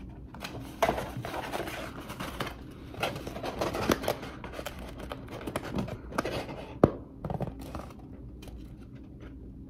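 A paper takeout bag rustling and a cardboard burger box being handled and opened: scattered crinkles, scrapes and light clicks, with one sharp click about seven seconds in, then only faint rustle near the end.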